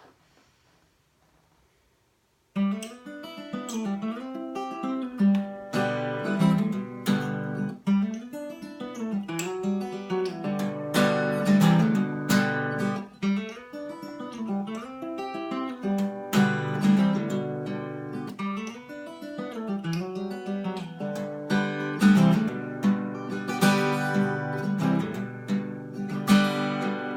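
Acoustic guitar playing a strummed and picked instrumental introduction, starting sharply about two and a half seconds in after near silence.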